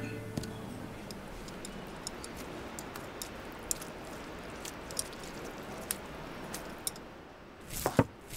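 Faint steady hiss with scattered sharp ticks, then near the end a few knife strikes on a chopping board.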